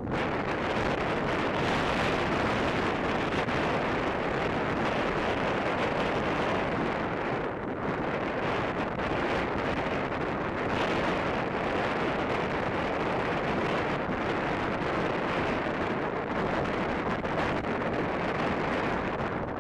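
Strong, steady wind of a ground blizzard buffeting the microphone with a continuous rushing noise.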